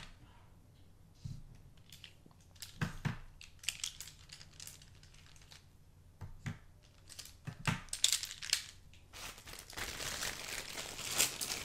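Woodless colored pencils clicking against each other and tapping down onto paper as a few are picked out and laid on the table. About eight seconds in, a clear plastic zip-top bag crinkles for several seconds as the rest of the pencils are put back into it.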